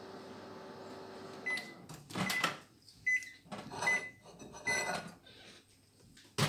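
Microwave oven running with a steady hum that stops about one and a half seconds in as the 20-second heating cycle ends, followed by about five short high beeps mixed with louder handling knocks, and a sharp click near the end.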